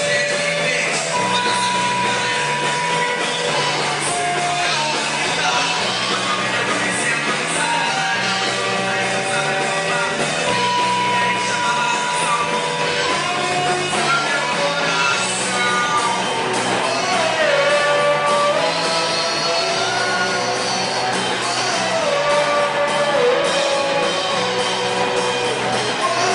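Rock band playing live, with guitar, bass and drums under a singer who sings and shouts.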